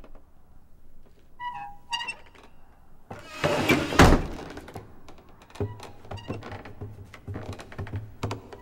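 Cartoon soundtrack: a few short woodwind-like notes, then a rising rush that ends in one loud wooden thud about four seconds in as the attic floor hatch is thrown open. After it come soft, even tiptoe steps, about three a second, over quiet music.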